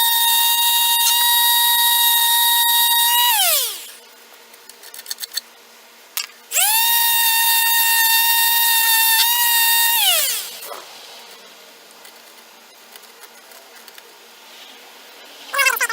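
Electric quarter-sheet sander with 100-grit paper sanding old adhesive off a chair leg, run twice for about three and a half seconds each. Each run is a steady high whine that falls in pitch as the motor winds down after it is switched off.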